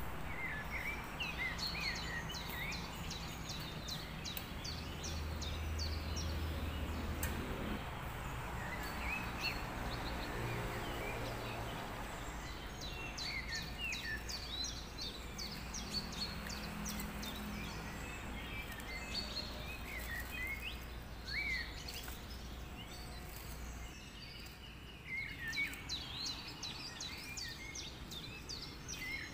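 Small birds chirping over and over, over a steady low hum. Near the end come a few soft thumps as handfuls of cabbage drop into the pot.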